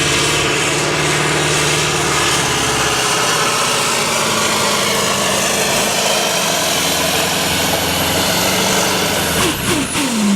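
Diesel engine of a super sport pulling truck running hard at full throttle during a pull. Near the end its pitch falls away.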